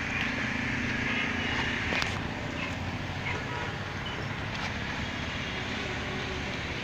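Steady road traffic noise, a low rumble of passing vehicles, with an engine hum over the first two seconds and a brief knock about two seconds in.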